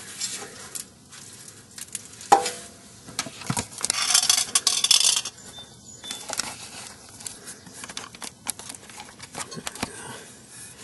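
Metal clinks, knocks and scraping as a car's exhaust pipe is pushed back and worked loose from its mounting, with hand tools handled. There is one sharp knock about two seconds in and a longer scraping rasp around four to five seconds in.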